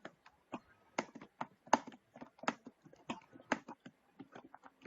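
Computer keyboard typing: irregular key clicks, a few of them sharper and louder than the rest.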